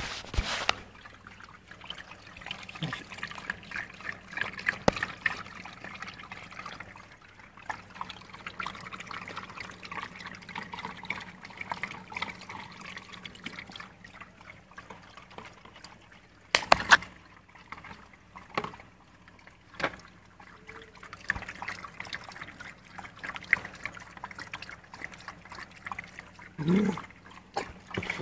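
A dog eating, with wet mouth sounds and many small clicks, and a loud cluster of sharp knocks about two thirds of the way through.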